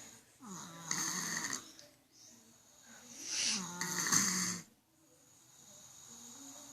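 Child snoring: two long, rasping snoring breaths about three seconds apart.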